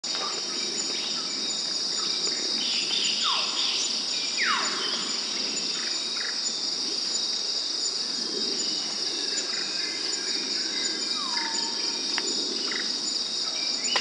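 Steady, high-pitched drone of calling insects. Over it, a few birds give quick downward-sweeping whistles: two about three and four and a half seconds in, and a shorter one near eleven seconds.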